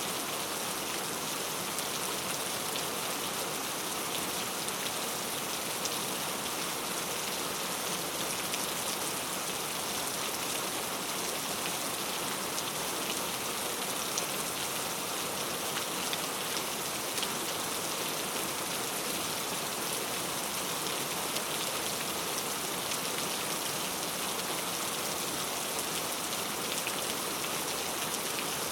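Heavy rain falling steadily, a dense hiss of drops with fine individual patters on a surface.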